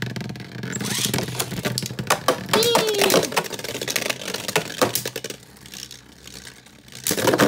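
Beyblade Burst spinning tops in a clear plastic stadium: quick clicking and rattling of a spinning top on the stadium floor. A second top is launched in about two and a half seconds in, and sharp clacks follow as the two hit. A loud clash near the end is the hit that bursts one of them.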